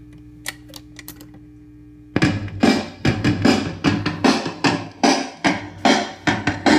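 1956 RCA 7-HF-45 record changer between two 45s. For about two seconds there is only a steady hum and a few clicks as the changer cycles, then the next record starts playing through the built-in speakers with a steady drum beat.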